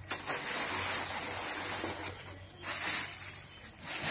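Dry stalks, leaves and waste paper rustling and crackling as they are pulled about by hand, in uneven bursts, with a long stretch at first and shorter ones later.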